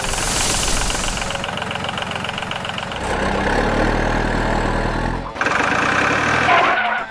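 Vehicle engine sounds that change abruptly: a hiss over the first second, then a steady low engine note from about three seconds in that cuts off suddenly just after five seconds, followed by a different higher mechanical sound.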